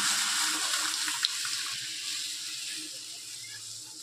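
Boiled moong dal and its water being poured into a pot of hot fried masala, splashing in with a steady hiss that gradually fades. A single light clink sounds about a second in.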